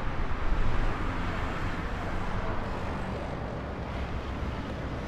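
Steady street noise with a low rumble, like traffic passing.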